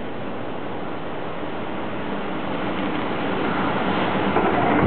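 Electric trains running on the line, heard as a steady rushing noise of wheels on rail. It grows louder over the second half as an electric passenger train draws close to the platform, with an EF210 electric locomotive hauling a freight train in behind it.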